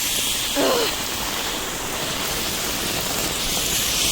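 Torrential rain pouring down on flooded pavement, with floodwater running, a steady hiss.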